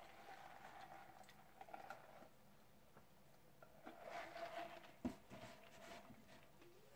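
Faint eating sounds close to the microphone: chewing, then sipping soda through a straw about four seconds in, followed by a single knock about five seconds in.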